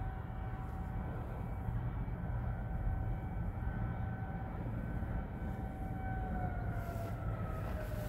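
Distant Federal Signal 2001-series outdoor warning sirens sounding a steady tone, which glides down and fades in the last couple of seconds as the sirens wind down at the end of the monthly test. A steady low rumble sits underneath, heard from inside a parked car.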